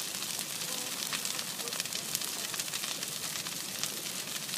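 Bonfire burning with steady crackling: a hiss dotted with many small, quick pops.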